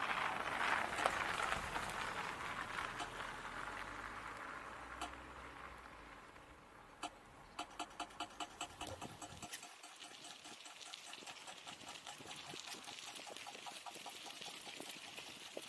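Bicycle tyres crunching and hissing over packed snow, fading as the bike slows. About halfway through, a sharp regular ticking, about five ticks a second, runs for a couple of seconds. Fainter ticking and tyre noise follow as riding resumes.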